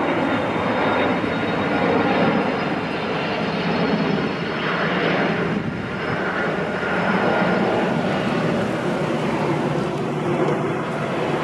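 Steady drone of aircraft engines, holding at an even level throughout.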